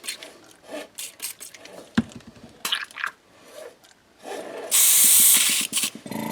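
Airbrush being cleaned out between colours: small clicks and rubbing as it is handled, then about five seconds in a loud hiss of air and cleaner blown through the airbrush for about a second. A steady motor hum starts near the end.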